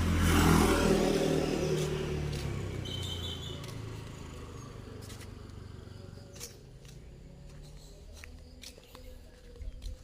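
A motor vehicle passing close by, its engine hum and road noise swelling about half a second in and then fading away over several seconds, followed by a few faint clicks.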